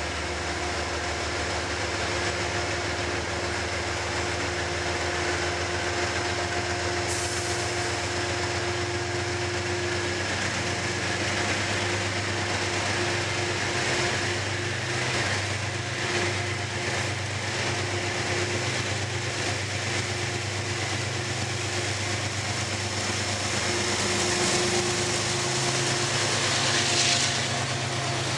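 GE Genesis P32AC-DM diesel locomotive running with a steady low hum and drone as it draws a Metro-North Shoreliner train slowly through the station. Wheel and rail noise from the passing coaches builds up, getting a little louder near the end.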